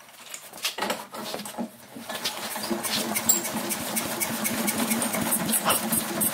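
13 hp single-cylinder Hatz diesel being spun over with its hand crank: a rapid, even mechanical clatter with a steady hum, building up about two seconds in.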